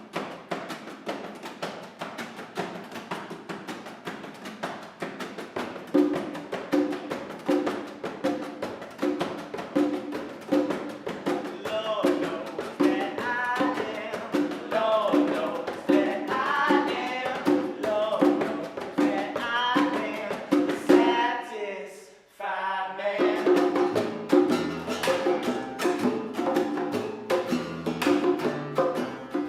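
A band playing an upbeat song: steady hand percussion, a pulsing bass line joining a few seconds in, and singing over it. The music breaks off briefly about two-thirds of the way through, then comes back in.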